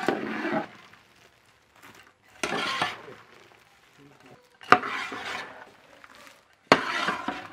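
A ladle stirring a large metal uruli full of jaggery-coated fried banana pieces (sarkara varatti), working the syrup and dry ginger powder through them. There are four strokes about two seconds apart, each a scraping clatter of the sticky pieces, two of them starting with a knock against the pan.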